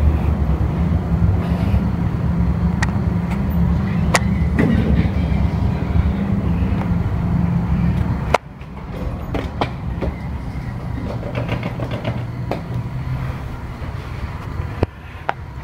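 Mitsubishi Elenessa machine-room-less elevator car in motion: a loud, steady low rumble and hum that drops off suddenly with a click about eight seconds in, leaving a quieter hum with scattered sharp clicks.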